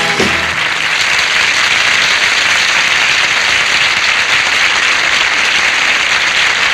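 Studio audience applauding steadily as the song's last note ends in the first half second.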